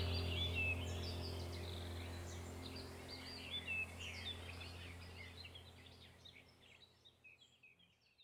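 Many small birds chirping over a low steady hum, the whole sound fading out gradually to silence near the end.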